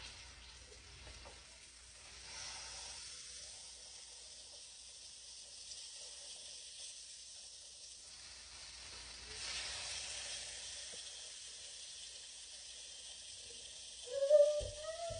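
Chicken pieces sizzling in hot olive oil in a skillet: a steady hiss that swells twice. Near the end a short, loud, high-pitched voice cuts in.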